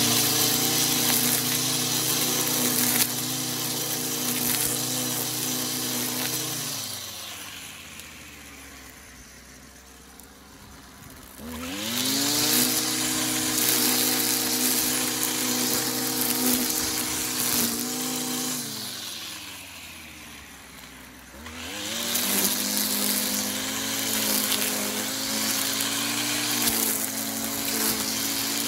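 String trimmer cutting grass at full speed, its motor easing off and slowing down twice, about seven seconds in and again around nineteen seconds, then speeding back up each time.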